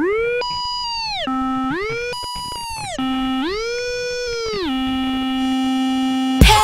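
Electronic music: a lone synthesizer tone slides up an octave, holds, and drops back, three times over, with no beat. The full track with drums comes back in just before the end.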